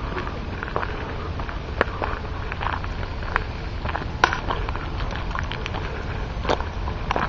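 Footsteps crunching and scuffing on dry ground and brush, irregular crackles with a few sharper snaps, over a steady low rumble.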